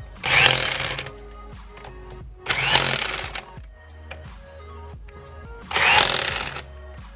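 Impact driver running the wheel bolts home in three short bursts of about a second each, each with a rising whine, over background music.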